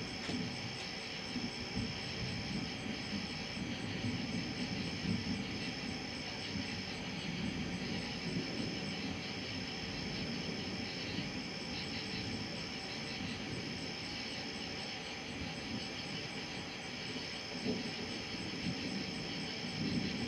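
Night insect chorus: a steady high-pitched trilling that breaks off briefly now and then, with a faint regular pulsing chirp above it, over a low irregular background noise.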